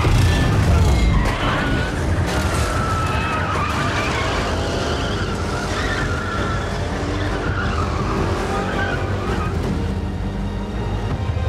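Car-chase sound effects: engines revving hard and tyres squealing as cars slide and swerve. Film score plays underneath.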